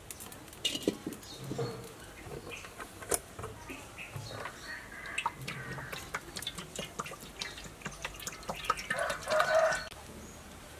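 Chickens clucking close by, with a louder call about nine seconds in, over light clinks of a metal wok and cooking oil being poured into it from a plastic bottle.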